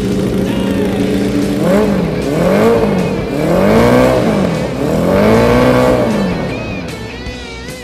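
Honda CB 550's air-cooled inline-four engine being revved in the bike's frame, the throttle blipped about four times so the pitch rises and falls between returns toward idle.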